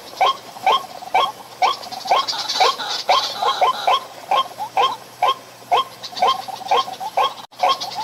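A bird calling over and over, a short arched note about two to three times a second, keeping an even rhythm throughout.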